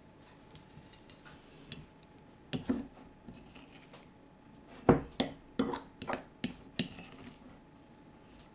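Metal fork clinking and scraping against a glass bowl as it fluffs couscous: a few scattered clicks, then a quick run of about seven sharp clinks in the second half.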